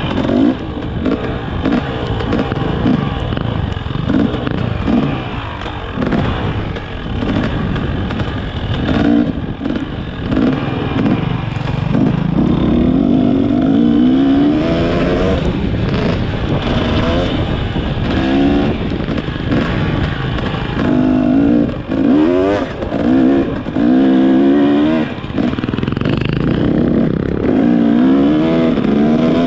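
Motorcycle engine being ridden hard, its pitch climbing and dropping back again and again as it revs up.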